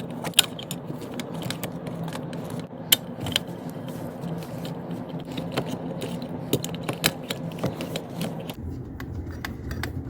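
Small metal clicks, rattles and scrapes of hand work on a dishwasher's electrical connections as its wires are disconnected, over a steady low hum.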